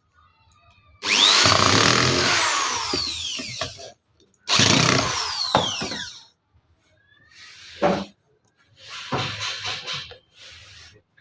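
A power tool run in two bursts of about two to three seconds each. Its whine falls in pitch as each burst winds down. A short knock and a few quieter noisy bursts follow near the end.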